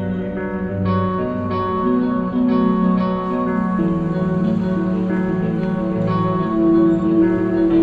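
Instrumental background music: sustained chords with a new note starting every half second or so.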